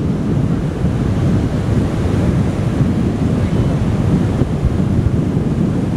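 Sea surf washing onto a beach, with strong wind buffeting the microphone: a steady, heavy low rush with no breaks.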